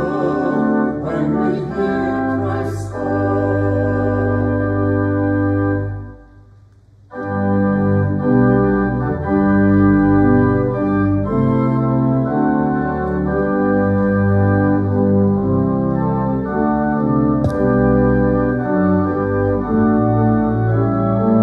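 Organ playing slow, sustained chords as closing music, joined by singing voices in the first three seconds or so. The organ stops for about a second around six seconds in, then carries on with held chords.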